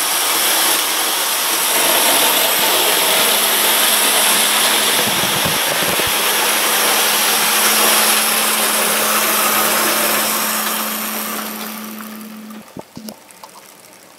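OO gauge model Class 37 diesel locomotive running on the track at speed, hauling its coaches, its motor and gears giving a steady whirring hum; it runs smoothly with a missing drive gear wheel now replaced. The sound fades away about twelve seconds in as the locomotive slows.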